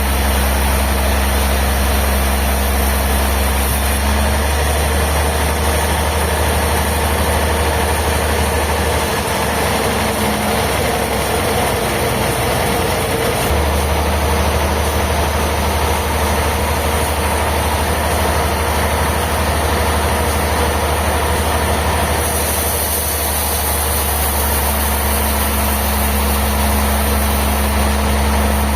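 Sawmill machinery running steadily with a strong low hum. The hum wavers for a few seconds about nine seconds in, then settles again.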